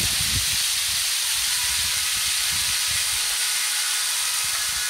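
Garden fountain spraying water: a steady, even hiss of falling spray.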